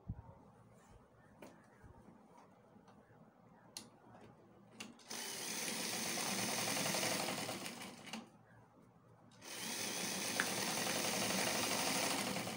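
Sewing machine top stitching a trouser pocket, in two runs. After a few seconds of quiet handling with small clicks, it runs steadily from about five seconds in, stops briefly near the eight-second mark, and starts again about a second and a half later.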